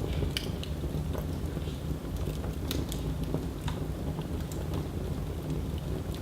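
Wood fire burning in a fireplace: a steady low rumble of flames with irregular sharp crackles and pops, a few each second.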